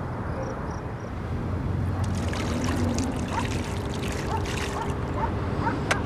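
Water splashing and lapping in the shallows, with irregular splashes from about two seconds in over a steady low rumble of wind on the microphone.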